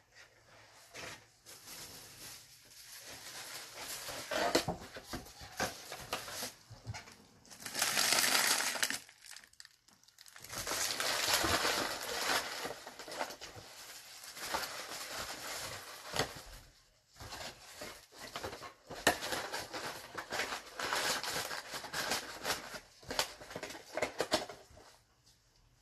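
Plastic packaging crinkling and rustling as it is handled, in several bursts with short pauses between them. The loudest stretches come about eight seconds in and again around eleven to thirteen seconds in.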